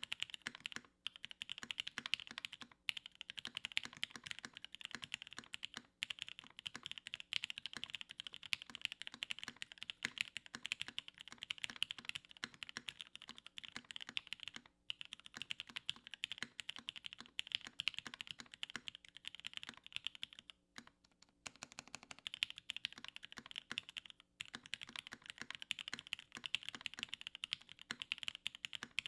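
Continuous fast typing on a mechanical keyboard with Gateron Ink Red linear switches on an aluminium plate: a dense run of keystroke clicks and clacks, broken by a few short pauses, the longest about 21 seconds in.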